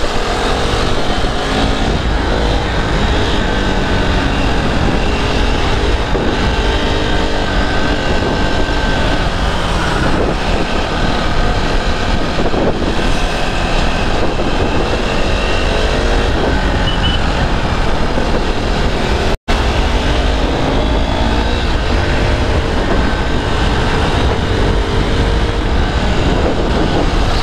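Wind rushing over a GoPro's microphone at road speed, with a KTM RC's single-cylinder engine running underneath, its pitch slowly rising and falling. The sound cuts out completely for a split second about two-thirds of the way through: the GoPro's mic dropping out.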